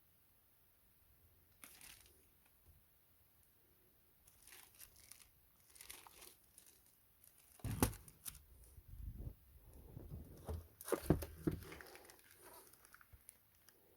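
Packaging being handled, torn open and crumpled: a run of irregular rustles and crackles, loudest about eight and eleven seconds in.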